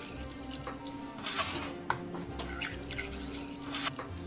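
Quiet background music with held notes, with a few light clicks and drip-like sounds.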